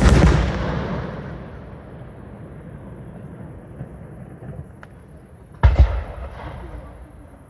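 Aerial firework shells bursting outdoors. A loud bang comes right at the start and its rumble dies away over about two seconds. After a few faint pops, a sharp double bang about five and a half seconds in trails off briefly.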